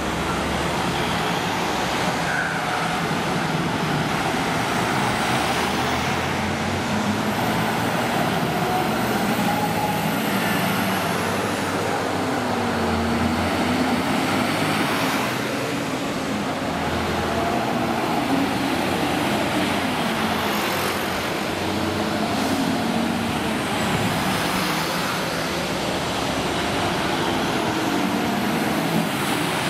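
A column of fire engines and other fire service vehicles driving past one after another: diesel engines and tyre noise rising and falling as each vehicle goes by.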